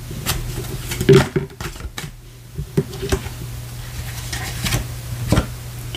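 Tarot cards being handled and laid out on a desk mat: irregular light taps and clicks, over a steady low hum.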